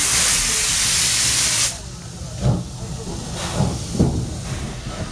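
Steam locomotive setting off: a loud hiss of steam that cuts off suddenly after about a second and a half, then slow, low exhaust chuffs about a second apart as it starts to move.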